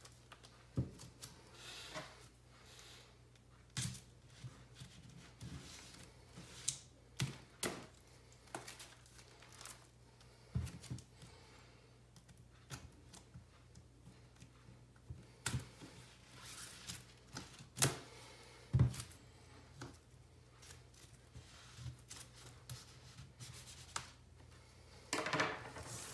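Plastic shrink wrap on a vinyl LP sleeve being slit with a blade and handled, crinkling and tearing, with irregular sharp clicks and taps of the sleeve and tool against the tabletop. A denser burst of crinkling comes just before the end.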